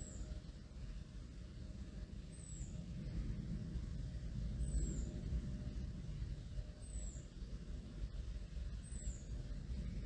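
A bird calls a single high, thin, down-slurred note five times, about every two seconds, over a low steady rumble.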